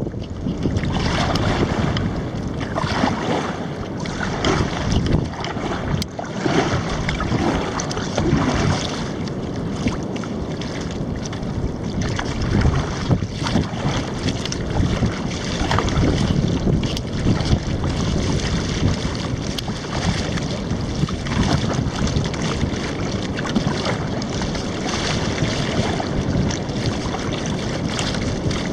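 Kayak being paddled on open water: wind buffeting the microphone over water sloshing and splashing, steady throughout with small swells.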